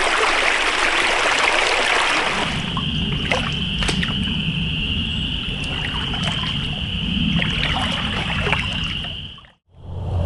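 Small creek rushing over branches and debris for the first couple of seconds, then irregular sloshing and splashing of someone wading through shallow floodwater. A steady high-pitched tone runs under the wading, and the sound drops out briefly near the end.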